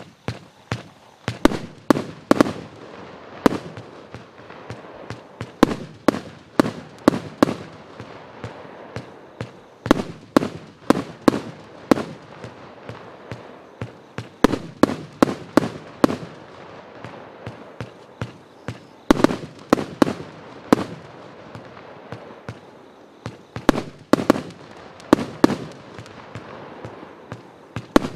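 Pyroworx Flashpoint 30 mm 100-shot compound barrage firing: sharp shots one after another, roughly two a second, over a steady hiss, with short lulls about eight seconds in and again past twenty seconds.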